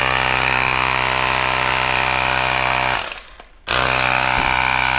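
An electric air compressor running steadily as it inflates a fat bike tire toward 10 psi. It cuts out about three seconds in and starts again about half a second later.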